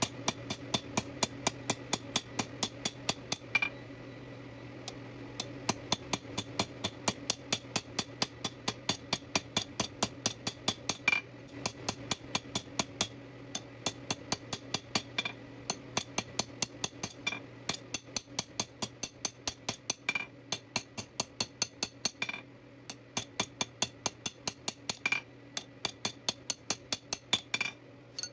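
Rapid, even hammer blows on a metal tube resting in a forging die, about four strikes a second with a few harder blows now and then, each with a short metallic ring, as the sides of the pentagonal taper are forged flat. A steady low hum runs underneath.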